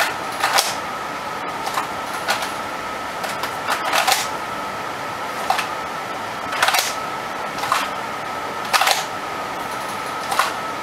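Paintball revolver being drawn out of a hip holster and pushed back in, over and over: a string of short scrapes and knocks, roughly one a second, over a steady faint high hum.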